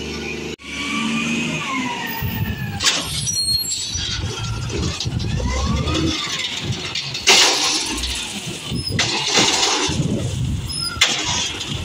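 Automated side-loader arm on a 1999 Peterbilt 320 garbage truck lifting and dumping a wheeled recycling cart: the hydraulics squeal with rising and falling whines over the running diesel engine. Sharp knocks come as the cart is shaken and bumps the hopper, the loudest about seven seconds in.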